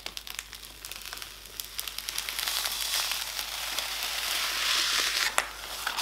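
Protective plastic film being peeled off the glass side panel of a PC case: a continuous crinkling crackle full of small clicks, louder in the middle.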